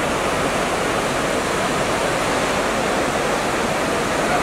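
Fast, swollen river rapids rushing in whitewater: a steady, even rush of water with no breaks.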